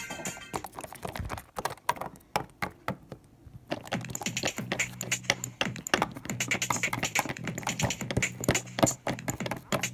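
Small plastic toy figurines and props clicking and tapping against a hard surface as they are handled and moved along, in irregular quick taps.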